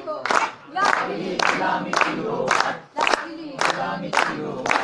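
A crowd singing together in unison, with hand claps in time about twice a second.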